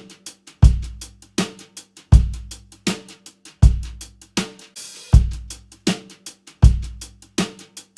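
Steady drum beat: bass drum and snare alternating about every three-quarters of a second, with quick hi-hat ticks between them and a brief cymbal wash near the middle.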